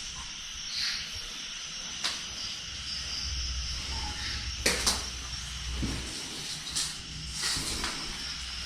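A steady high hiss with a few sharp knocks and clicks scattered through it, and a low rumble in the middle.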